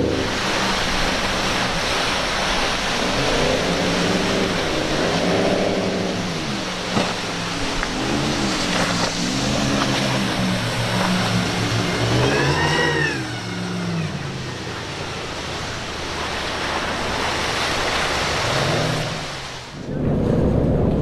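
Cigarette speedboat's engines running hard through rough inlet water, their note rising and falling several times as the throttle is worked, over a steady rush of water and spray.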